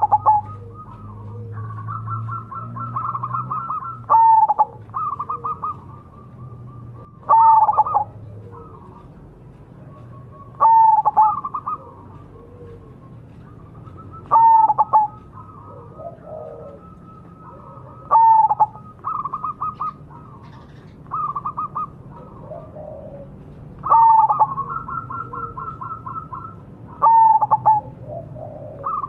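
Zebra dove (perkutut) cooing: the same song phrase repeats about every three to four seconds, each opening with a loud falling note and running into a quick string of rapid staccato coos.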